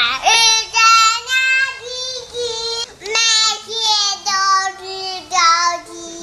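A young child singing a children's song alone, without accompaniment, in a high voice with held, sliding notes.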